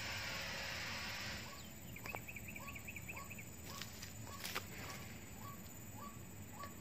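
Outdoor ambience with animal calls: a steady hiss that stops about a second and a half in, a quick run of high chirps about two seconds in, and a soft short call repeating about twice a second. A few light knocks and rustles come as the snared squirrel struggles at its stake.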